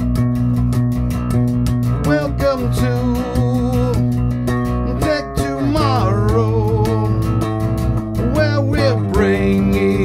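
Music: an electric bass guitar playing with a man singing over it, and a fast, steady ticking beat.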